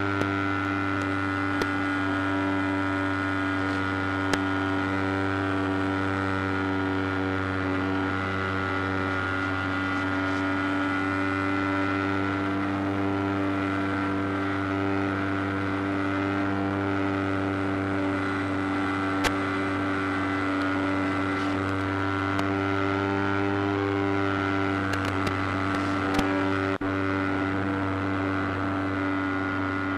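Steady electrical buzz on the model plane's onboard FPV audio feed. It holds several fixed pitches and never changes, broken now and then by a sharp click of radio-link static.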